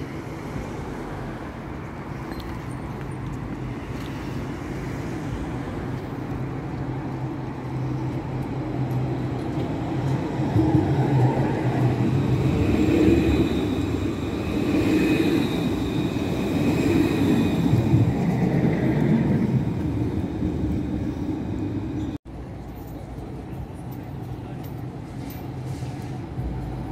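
City tram passing close by on street-running track. Its running noise and a high electric whine build up, are loudest as it goes past and then fade. About 22 s in the sound cuts abruptly to quieter steady street noise.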